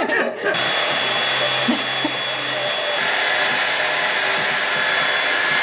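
Handheld hair dryer blowing, switched on about half a second in and then running at a steady level, a rushing air noise with a thin high motor whine.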